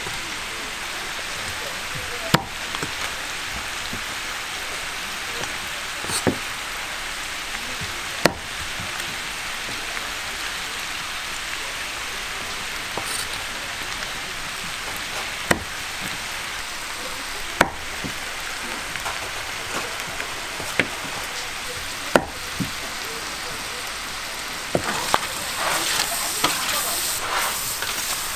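Pork offal sizzling on a flat iron griddle, a steady frying hiss broken by sharp taps every few seconds. Near the end comes busier clattering and stirring as the pieces are turned.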